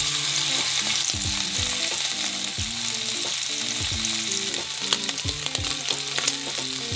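Sliced wiener sausages sizzling in hot oil in a non-stick frying pan as they are seared until browned, with scattered clicks of wooden chopsticks turning them against the pan.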